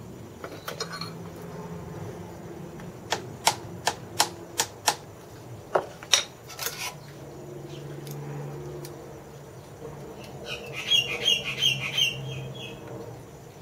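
Sharp clicking taps of hand tools against the metal of the milling machine's headstand while it is being aligned, about eight in quick succession. Near the end comes a short run of high, squeaky chirps.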